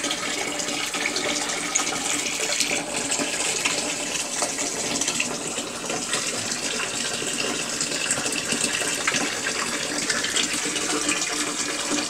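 Water running from the tap into a bathtub: a steady rush of water splashing into the shallow water in the tub.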